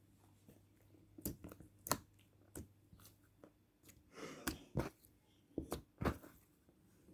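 Yellow clear glassy slime being squeezed and stretched by hand, giving off a string of irregular sharp pops and clicks, with a short squelch about four seconds in.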